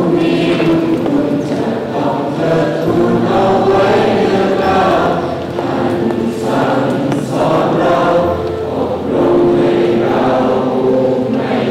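A choir of many voices singing a slow song, holding long notes that swell and fade.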